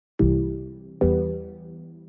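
Background music: two struck chords about a second apart, each starting sharply and fading away.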